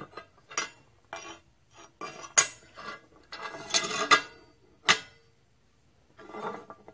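Steel hold-down clamp being swung and set down on a steel welding table: a string of sharp metallic clinks and clanks, some ringing briefly.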